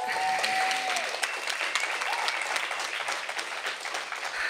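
Audience applauding, with a cheer or whoop from the crowd in the first second; the clapping thins out near the end.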